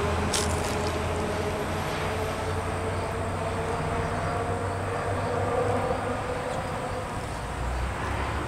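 A steady low engine hum with a wavering mid-pitched drone over it, and a single short click about half a second in.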